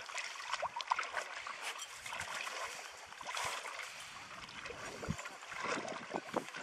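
Grey Norwegian Elkhound digging in dry beach sand: irregular scratching and rustling of sand close to the microphone.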